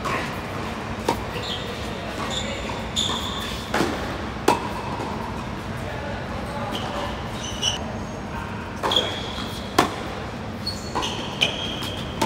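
Doubles tennis on a hard court: several sharp pops of racquets striking the ball and ball bounces, irregularly spaced, with short high squeaks of shoes on the court surface. A steady low hum underneath.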